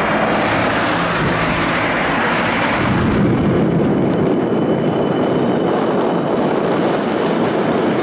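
Tram running at speed, heard from inside the car: a steady noise of wheels on rails and running gear that grows heavier about three seconds in, with a faint thin high whine from about halfway.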